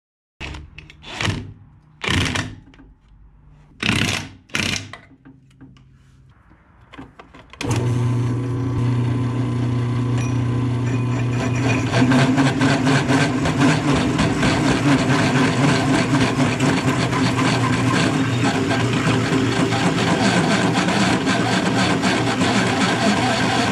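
A few short knocks and scrapes. Then, about eight seconds in, a drill press motor starts and runs steadily with a hum, its hole saw cutting into a steel washer to open out the centre.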